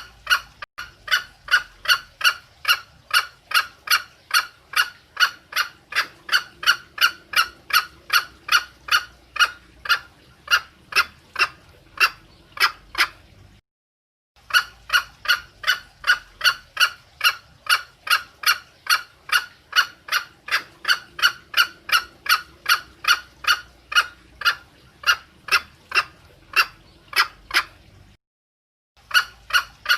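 Female green junglefowl clucking: the hen's call for a cock, given as short, sharp notes about three a second in long even runs, broken twice by a brief silence.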